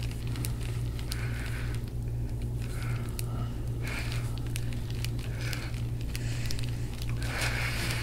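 Scattered small crackles and soft rubbing as a forearm presses and works into a large muscle knot beside the shoulder blade, over a steady low hum.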